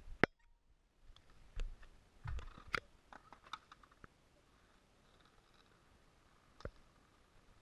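Scattered clicks and knocks close to the microphone from the camera being jostled on a scooter's handlebar: a sharp click right at the start, a cluster over the next few seconds and one more near the end, with faint hiss between.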